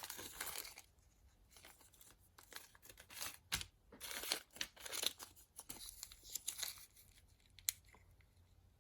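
Small plastic bags of watch parts being handled, crinkling in irregular bursts, with one sharp click near the end.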